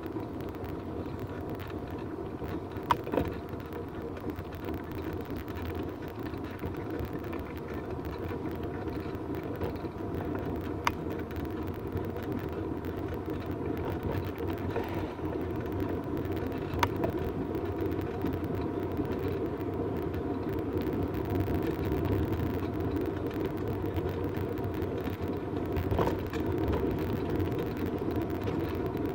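Bicycle riding on an asphalt trail, heard from a handlebar-mounted phone: steady tyre and wind rumble with a handful of sharp clicks and knocks from the bike over the bumpy pavement.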